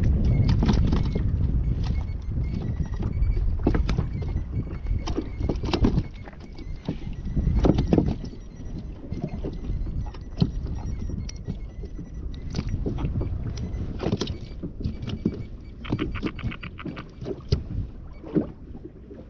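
Sea water slapping against a plastic fishing kayak's hull with wind rumble on the microphone, loudest for the first six seconds or so. Scattered clicks and knocks in the kayak run throughout, with a quick run of ticks near the end.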